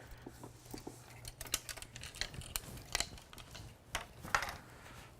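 Irregular light clicks and knocks of a folding boat's frame parts, ribs and rods, being unlatched, pulled apart and handled, with a couple of louder knocks about four seconds in.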